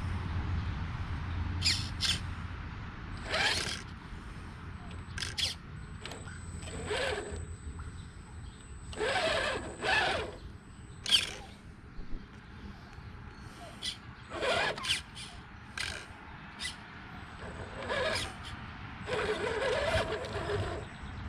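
Redcat Gen8 RC rock crawler climbing over boulders: short, separate bursts of electric motor and gear noise as it is throttled in spurts, mixed with tyres scrabbling and scraping on the rock.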